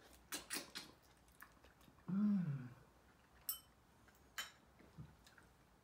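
Wet slurping, sucking and lip-smacking clicks as roe and meat are sucked out of a soy-sauce-marinated raw crab shell, then chewing. About two seconds in, a short hummed "mmm" of enjoyment, the loudest sound.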